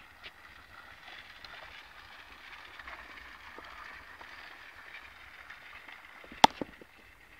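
Faint hiss of a racing bicycle's tyres on the concrete velodrome track, swelling as the rider passes and fading as he rides off. A single sharp knock near the end is the loudest sound.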